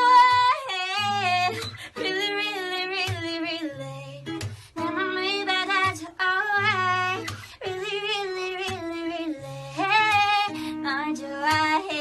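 A woman singing held, wavering notes in short phrases over a musical accompaniment with steady low bass notes.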